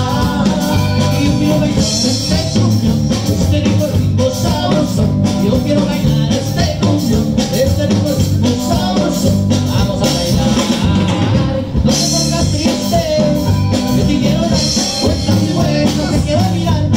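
A live norteño-style band playing a song with a steady beat: accordion, acoustic guitar, electric bass and drum kit, amplified through stage PA speakers.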